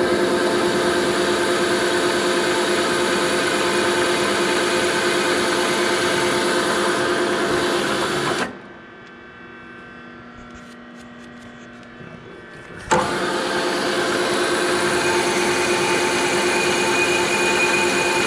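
Milling machine running steadily while it machines a piston-pin set-screw hole in a rough-cast piston. Several held tones run under the cutting. About halfway through it drops to a much quieter hum for about four seconds, then comes back suddenly.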